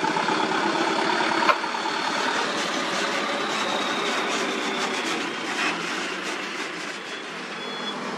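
Small dump truck's engine running as it drives past close by, with one sharp knock about a second and a half in. Near the end its reversing beeper starts.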